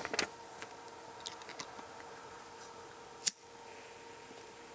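Quiet room tone with a faint steady electrical hum, a few light ticks of small handling, and one sharp click a little over three seconds in.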